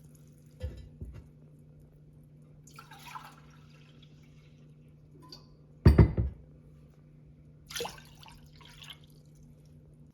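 Water being poured from a glass into a cooking pot in short splashes, with a loud clunk about six seconds in and a small knock near the start, over a low steady hum.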